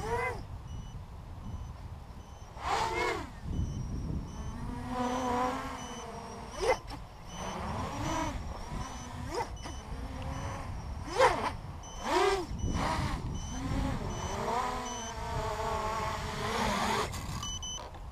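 Racing quadcopter's four brushless T-Motor MN2206 motors spinning HQ 6045 props, whining and gliding up and down in pitch as the throttle changes, with several sharp swells as it punches or passes close by.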